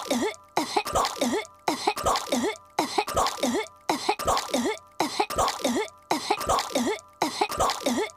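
A young girl's cartoon voice coughing and hacking on swallowed chewing gum. The same short burst of several quick coughs is looped, repeating about once a second.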